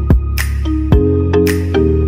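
Background music with a steady beat: a deep electronic kick drum that drops in pitch, sharp snare-like hits and held chords.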